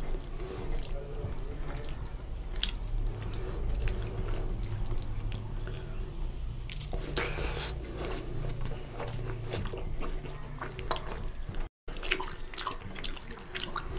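Wet squishing and small sticky clicks of a hand mixing rice into runny fish curry on a steel plate.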